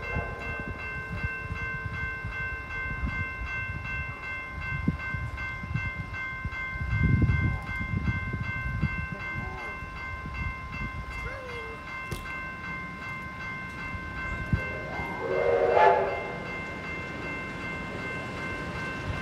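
Railway level-crossing bell ringing steadily as a steam locomotive approaches, with a short steam whistle blast about 15 seconds in.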